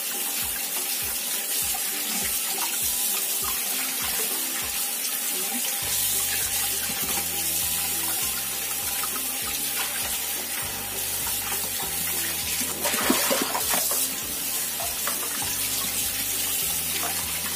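Kitchen tap running steadily, the water splashing over a raw whole chicken and into a glass bowl as it is rubbed and rinsed by hand.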